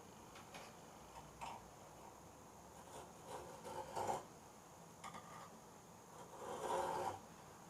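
Light clicks and knocks as a hacksaw is set against a carbon fork's steerer tube, then two short scraping passes, about four seconds in and near the end, as the blade starts the cut.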